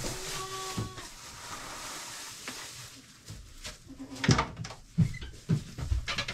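A young goat bleats once, a short steady call, right at the start, while loose hay rustles as it is shaken out of a plastic bucket onto a wooden hay rack. In the second half the bucket knocks against the wood several times in quick succession.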